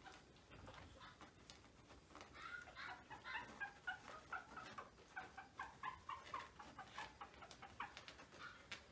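Young Maltese puppies giving a rapid run of short, high-pitched squeaks and whimpers, several a second, starting about two seconds in.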